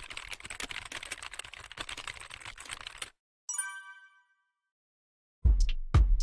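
TIG welding arc on galvanized pipe crackling and popping for about three seconds, then cut off. A single electronic chime rings and fades, and near the end music with a heavy beat starts loudly.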